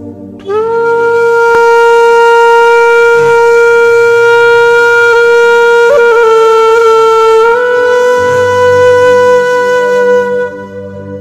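One long held note from a wind instrument, sliding up into pitch about half a second in and held for about ten seconds, stepping slightly higher partway through, over soft background music.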